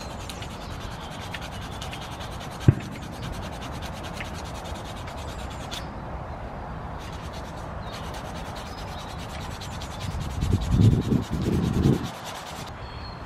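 Knife scraping out the bowl of a carved wooden spoon: a steady run of fine blade-on-wood scraping strokes. There is one sharp click about three seconds in, and a few louder low thumps near the end.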